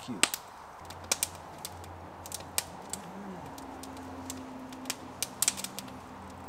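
Wood campfire crackling, with sharp irregular snaps and pops. A faint low steady engine hum, a distant motorcycle, runs underneath from about a second in.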